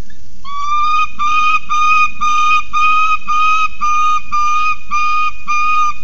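Peregrine falcon calling: a steady series of clear, even, whistle-like calls, about two a second, the first a little longer and slightly rising.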